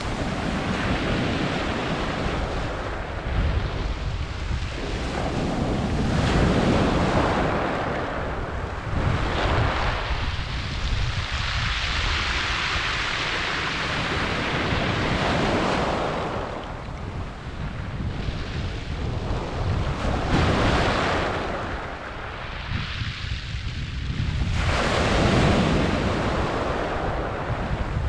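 Sea waves breaking and washing up and back over a shingle beach of rounded pebbles, a steady surf that swells and falls back every few seconds, with a hissing wash over the stones.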